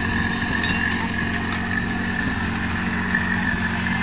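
Portable fire pump's engine running steadily, with a steady high whine above the engine note.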